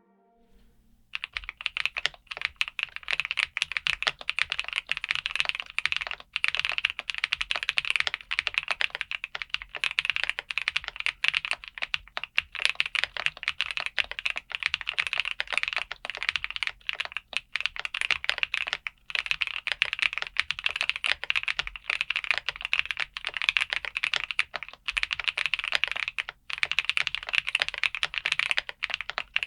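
Fast, continuous typing on a Skyloong GK104 Pro V4.0 full-size mechanical keyboard with KTT Rose Brown tactile switches. It starts about a second in, with a few brief pauses.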